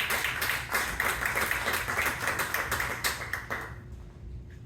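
Audience clapping, dense and irregular, dying away about three and a half seconds in.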